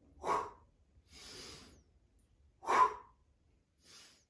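A man breathing hard through push-ups: two short, forceful exhales about two and a half seconds apart, with a softer, longer inhale between them and a faint breath near the end.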